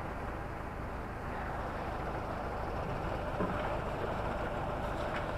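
Fire engine running steadily close by, a low even hum with hiss over it; one small knock about halfway through.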